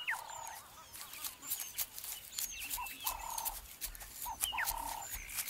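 Birds calling in a repeated phrase about every one and a half seconds, a falling whistle followed by a short lower note, with faint high chirps in between.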